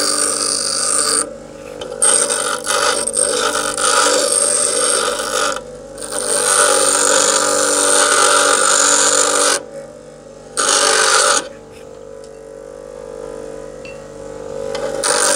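Bench grinder running with a steady motor hum while hardened file steel is pressed against the wheel in stretches of loud grinding, a spark test of the steel. The grinding breaks off several times, most briefly about a second in and near six seconds, and longest from about eleven and a half seconds to near the end, leaving only the hum of the spinning wheel.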